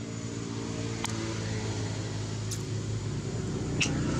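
Steady engine hum, slowly growing louder, with three short clicks spread through it.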